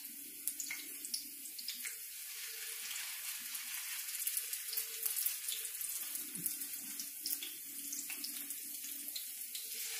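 Potato pancake batter and onions frying in hot oil in a skillet: a steady sizzling hiss with small crackles and pops throughout.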